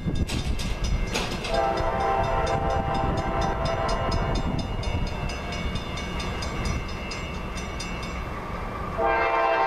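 Air horn of an approaching Norfolk Southern GE Evolution-series locomotive sounding a chord: one long blast begins a second or so in and fades mid-way, and a louder blast starts near the end. Under it runs the low rumble of the train, with a fast, even ticking.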